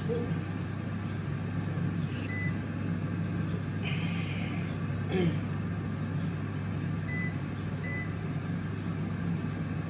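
Cosori dual-basket air fryer running, its fan giving a steady low hum. Short high beeps from its touch control panel come once about two seconds in and twice near the end, as its buttons are pressed. There is a brief hiss about four seconds in.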